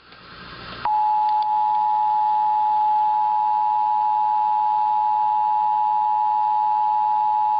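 Emergency Alert System two-tone attention signal on NOAA Weather Radio: a steady, loud two-pitch alert tone that starts about a second in, after a moment of faint radio hiss. It signals that a warning broadcast is about to follow.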